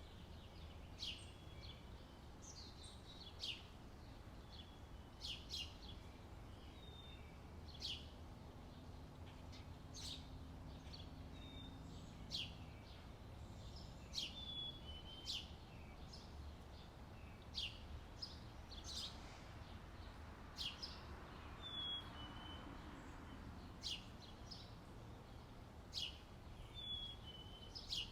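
Songbirds chirping: short, sharp high calls repeating every second or two, over a steady low outdoor rumble.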